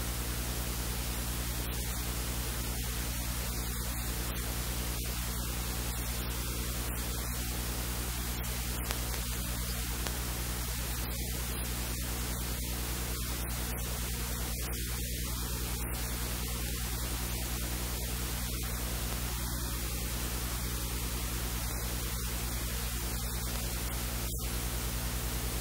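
Steady static-like hiss with a low electrical hum underneath, unchanging throughout; no distinct sound stands out.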